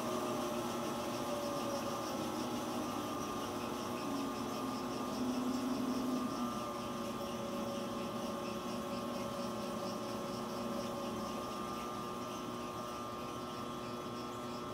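Aronson HD-100 welding positioner's drive motor and gearing running under pendant control: a steady hum with several held whining tones, one of them wavering for a couple of seconds near the middle.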